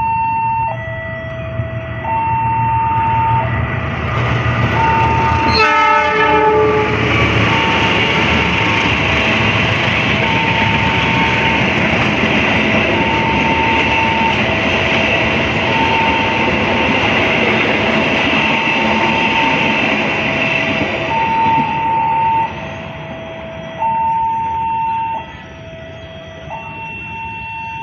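A level-crossing warning alarm alternates steadily between a high and a low tone, about a second each. A train passes, blowing its horn briefly about six seconds in, and the rumble of its cars on the rails lasts until about twenty-two seconds, then falls away.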